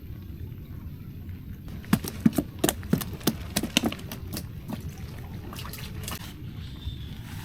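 A quick run of sharp knocks and splashes, lasting a couple of seconds and starting about two seconds in, over a steady low wind rumble.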